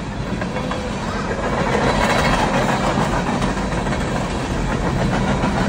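Freight train cars, flatcars and boxcars, rolling steadily past, their steel wheels running on the rails with a continuous rumble.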